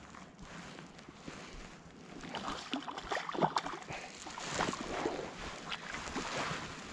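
Water splashing close beside a float tube: a hooked trout thrashing at the surface as it is brought in, with irregular splashes starting about two seconds in, the biggest one about three and a half seconds in.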